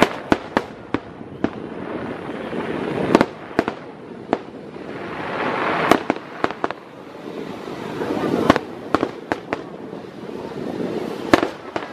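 Aerial fireworks shells bursting in a quick series of sharp bangs, some in rapid pairs and triplets, between swells of hissing crackle that build every few seconds.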